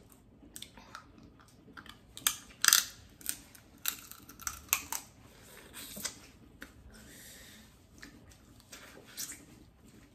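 Eating sounds at a seafood boil: the plastic food bag crinkling and clicking irregularly as hands dig through the shrimp and crab, mixed with chewing and lip smacks. The sharpest crackles come a little over two seconds in.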